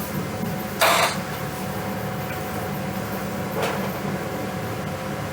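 Steady mechanical room hum, with a short burst of noise about a second in and a fainter, briefer one a little past three and a half seconds.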